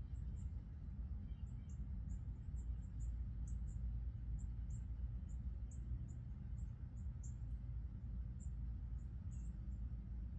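Outdoor ambience: a steady low rumble under short, very high-pitched chirps that repeat irregularly, about one or two a second.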